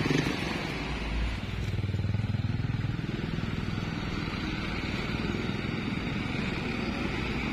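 Road traffic going by: trucks and motorcycles with their engines running, a steady low rumble that swells for a moment about two seconds in.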